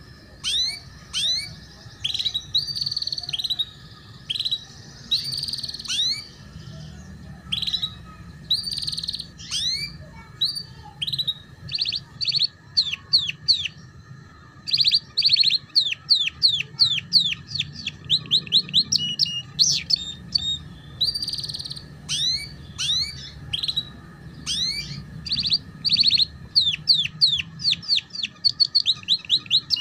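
Domestic canary singing a long, continuous song in the chattering 'ngeriwik' style: rapid runs of quick down-slurred chirps and trills in phrases with short breaks.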